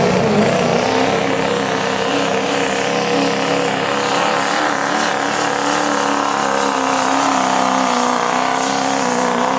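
Turbocharged diesel pickup engine at full throttle under heavy load, pulling a weight-transfer sled. It holds a high, steady pitch that creeps slowly upward.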